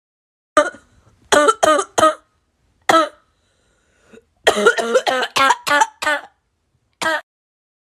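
A person coughing: five separate coughs in the first three seconds, then a quick run of about seven coughs about four and a half seconds in, and one last cough near the end.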